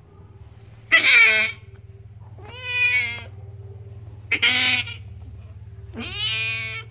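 Domestic cat in labour meowing four times in loud, drawn-out calls, the first the loudest.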